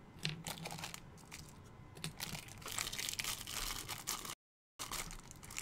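Thin plastic bag crinkling and being torn open by hand, with small scattered clicks of plastic. The crinkling is densest in the second half, and the audio briefly drops out near the end.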